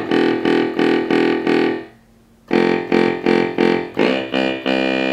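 ARP Pro/DGX analog synthesizer playing a buzzy bassoon voice: short runs of notes restruck about four times a second, with a brief gap after about two seconds. Each run stops cleanly when the keys are let go, a sign that the release now works and the notes no longer sustain indefinitely.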